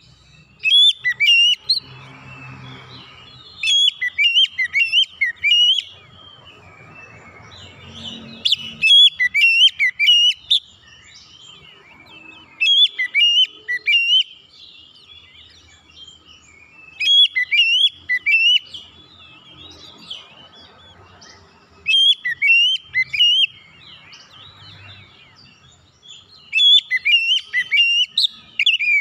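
Oriental magpie-robin giving loud, shrill whistled calls: seven bursts of quick notes sweeping up and down, each a second or two long, repeated about every four seconds.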